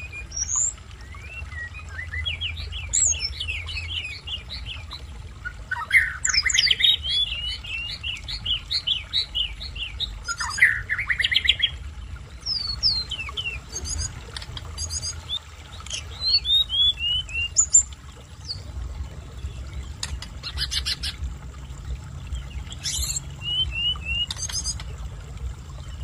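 Tledekan gunung, a small songbird, singing a varied run of high chirps and quick trills, with short dry rattling notes in the second half.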